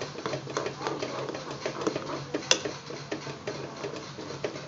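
A spoon knocking and scraping irregularly against a granite-coated pot as a thickening mango and cornflour pudding mixture is stirred continuously to keep it from sticking to the bottom. A steady low hum runs underneath.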